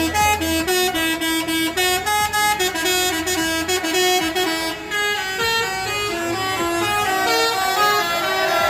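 Tour bus's basuri musical air horn (klakson telolet) playing a quick melody, its notes stepping up and down several times a second.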